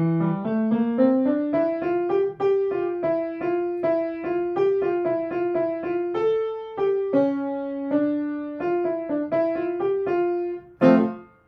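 Grand piano played: a quick melody of short, separate notes over lower accompanying notes, ending near the end with a loud final chord that is cut off abruptly.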